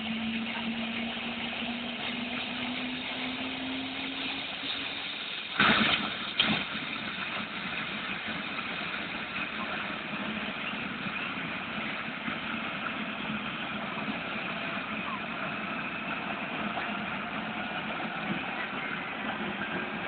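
Helicopter turbine engine running on the ground at start-up: a steady rushing whine, with a low tone that rises slowly over the first few seconds. Two sharp thumps about six seconds in.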